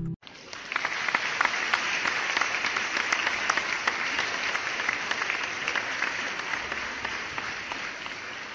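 A crowd applauding, with dense clapping that starts abruptly just after a strummed guitar cuts off and slowly fades toward the end.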